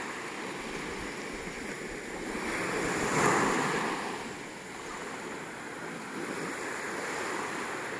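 Small waves washing onto a beach at a calm sea, one wave swelling and breaking a little over three seconds in.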